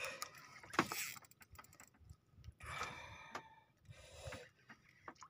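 Spinning reel being cranked in short spells against a hooked fish pulling on a bent rod: faint, irregular metallic clicking and rattling.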